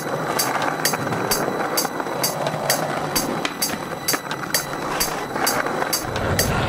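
Skateboard wheels rolling over pavement with a steady rumble, under a music track whose hi-hat ticks about twice a second.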